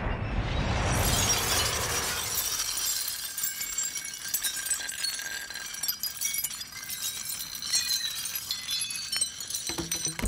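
A glass terrarium smashing on an asphalt road: the tail of the crash, then a long shower of glass shards and gravel raining down, tinkling and clinking, thinning out and stopping suddenly at the very end.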